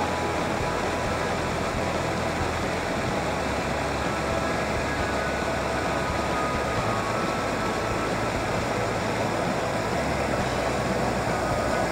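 Small mountain stream rushing and splashing over boulders in little cascades, a steady noise of falling water.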